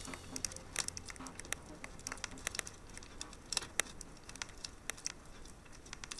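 Wood fire crackling: irregular sharp pops and snaps, several a second, over a faint hiss.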